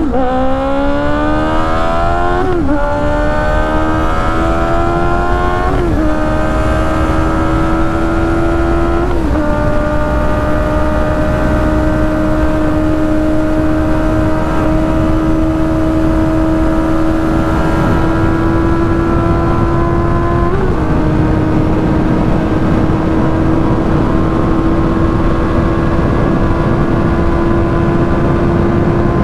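Benelli 600 motorcycle engine under full throttle, its note climbing steeply, with three quick upshifts in the first ten seconds. It then holds a high, slowly rising note in top gear at about 160 to 190 km/h, with one more brief dip partway through. Heavy wind rush runs under it.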